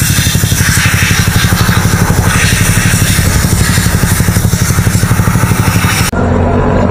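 A pressure spray gun hissing as it blasts the motorcycle's engine clean, over a steady, rapidly pulsing engine-like chug. The spray hiss cuts off suddenly about six seconds in, leaving the chugging.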